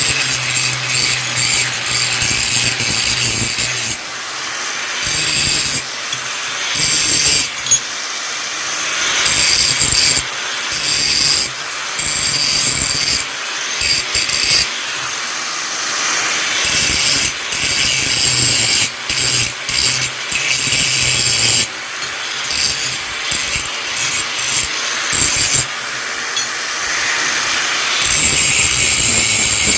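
Steel of an axe head being worked by abrasion: a harsh rasping noise that comes in uneven spells with short breaks.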